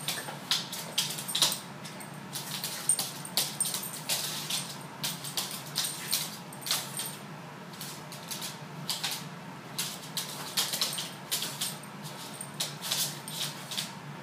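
Claws and paws of a Boston Terrier and a Ragdoll cat clicking and scrabbling on a laminate floor as they wrestle, in quick irregular clusters of sharp taps, with a light metallic jingle at times.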